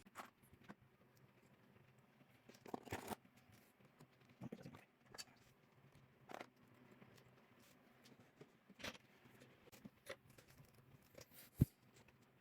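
Faint, scattered clicks and small taps of hand tools being handled on a workbench, with one sharper click near the end; otherwise near silence.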